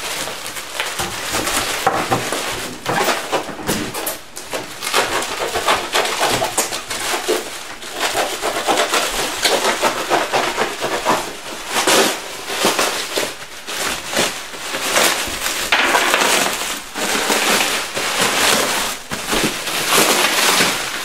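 Bubble wrap crinkling and rustling in dense, continuous crackles as it is handled and pulled off a wrapped object.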